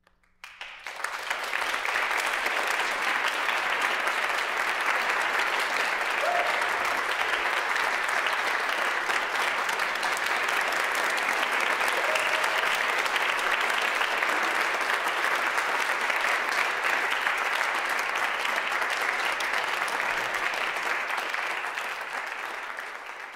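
Audience applauding, breaking out suddenly about half a second in and fading away near the end.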